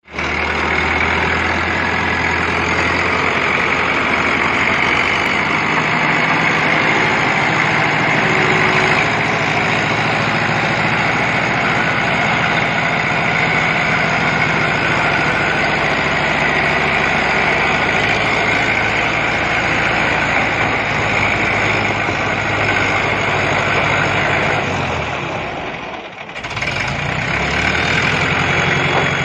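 Diesel engine of an Escorts hydraulic mobile crane running steadily while it lifts and carries a heavy load, its engine note shifting a few seconds in. The engine sound drops away briefly near the end, then comes back.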